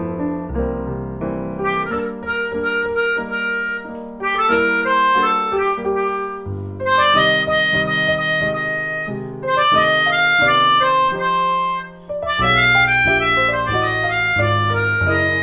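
Melodica playing a melody over digital piano accompaniment. The piano plays alone at first, and the melodica comes in about two seconds in, with a brief break in the phrase near the end.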